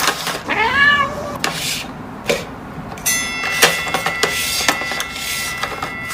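A house cat meows once, a single call rising then falling in pitch about half a second in. From about three seconds a steady high tone with several pitches holds, with scattered clicks.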